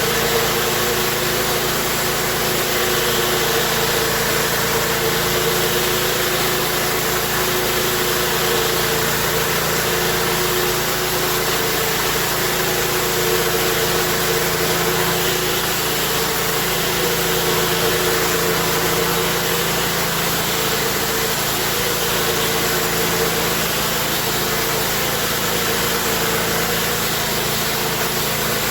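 Pressure washer running steadily: its engine hums at a constant speed under the wide, steady hiss of the spray.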